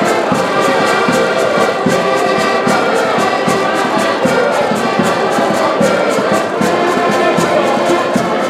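Portuguese folk group playing live: several accordions carry the tune over a steady bass drum beat.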